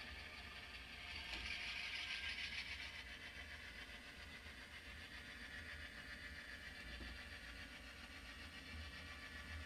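Model freight train running slowly, its boxcars rolling along the track with a faint, steady rolling whir that swells a little early on.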